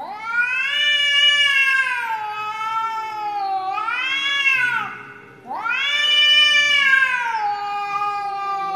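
Cats squaring off to fight, yowling in two long, wavering, rising-and-falling wails, the second starting about halfway through. This is the drawn-out threat caterwaul of cats about to fight.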